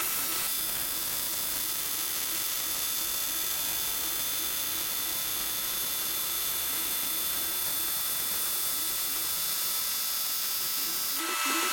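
Welding arc running a bead along an aluminum box's outside corner seam, a steady hiss that holds unbroken.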